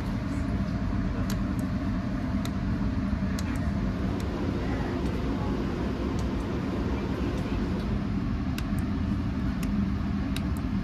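Steady low rumble inside the cabin of a diesel railcar, with a few light clicks and rattles now and then.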